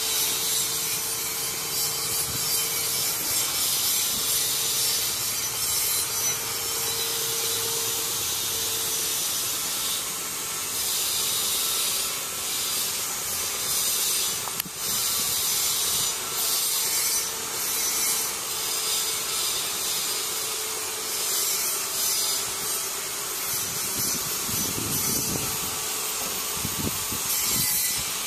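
A steady, rough hiss, with a faint low hum through about the first nine seconds and a few low rumbles near the end.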